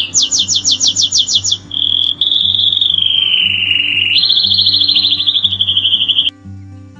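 A songbird singing: a fast series of falling whistled notes, about eight a second, then a long trill that slides slowly down in pitch and jumps up to a higher trill, cut off abruptly about six seconds in. Background music plays underneath.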